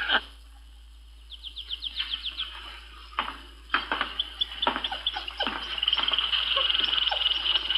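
Caged birds chirping and trilling, fast high twitters that thicken into continuous chirping about four seconds in.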